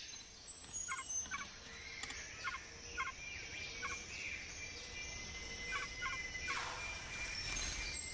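Rainforest ambience: steady thin high-pitched tones, with short chirps in pairs and threes repeating irregularly, and a brief rushing sweep about seven seconds in.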